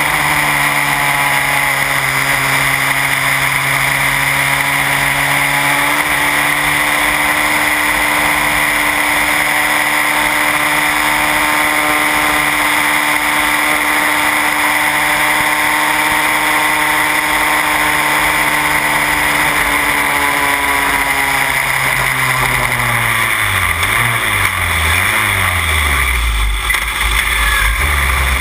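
Onboard sound of a Van Diemen Formula Renault racing car's engine running hard at steady high revs, with air rushing past. About 22 seconds in, the revs fall in a series of steps with short blips as the driver brakes and downshifts, ending in a low, heavy note.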